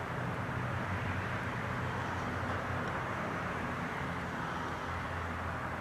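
Steady background hum and hiss with no distinct knocks or clicks.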